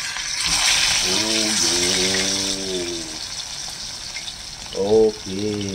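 Pork patties sizzling in hot oil in a frying pan, the hiss swelling about half a second in as the spatula works a patty and easing off after a few seconds. A man's wordless voice hums twice over it.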